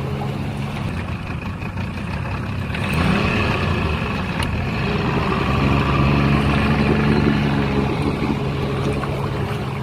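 A vehicle engine running steadily. It rises briefly about three seconds in and is louder from about six to eight seconds.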